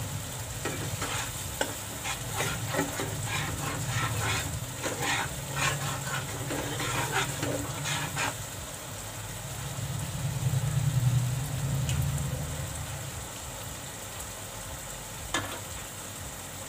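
A metal spatula stirs and scrapes thick masala around a nonstick kadhai in quick strokes while the masala fries in its separated oil with a steady sizzle. The stirring stops about eight seconds in and the sizzle carries on, with a low hum swelling briefly a few seconds later and a single click near the end.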